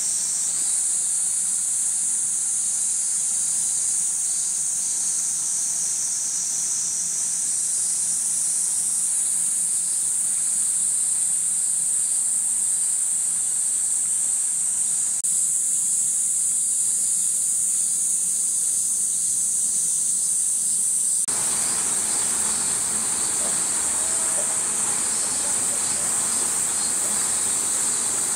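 Cicadas calling in a steady, high-pitched chorus. The sound shifts abruptly about halfway through and again about three-quarters through, with a fuller background noise after the second shift.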